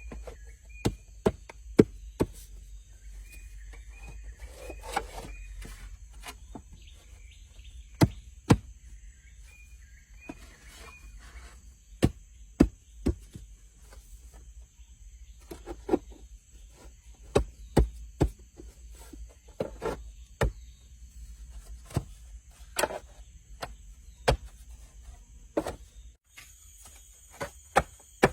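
A blade chopping wood: irregular sharp knocks, one or two a second, some louder than others. Under it runs a steady high-pitched insect drone.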